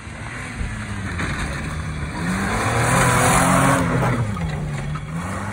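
Short-wheelbase Mitsubishi Pajero driving hard past at close range on a dirt and grass track. The engine revs up to its loudest about three seconds in, with a rush of tyres on dirt, then the revs drop and climb again near the end.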